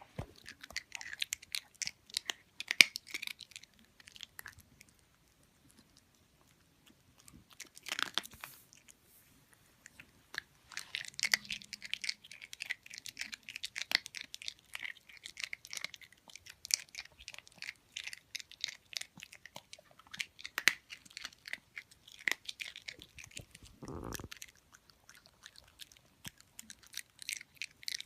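Loud crunchy chewing of something hard and brittle, in runs of rapid sharp crunches that break off for a few seconds twice early on before going on steadily.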